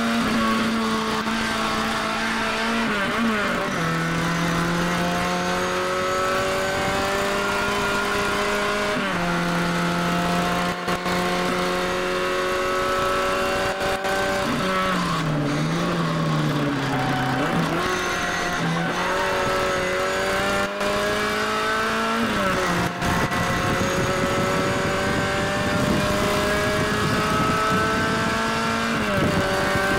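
Classic Mini race car's A-series four-cylinder engine under hard acceleration, heard from inside the cabin. The pitch climbs steadily and drops abruptly four times as gears change, with a stretch of uneven revs about halfway through.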